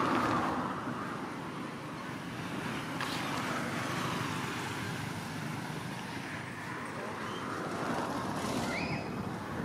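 Steady outdoor background noise with a few faint short high squeaks or chirps, one about three seconds in and one near the end.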